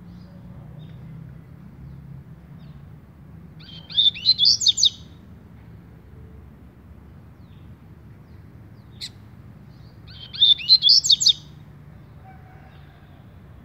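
Double-collared seedeater (coleirinho) singing its 'tui-tui' song type: two short phrases about six seconds apart, each a quick run of high, sliding whistled notes lasting about a second, with a single short high note between them.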